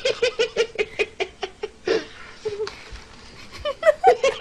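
A person laughing hard in quick repeated bursts. The laughter eases off in the middle and picks up again, higher, near the end.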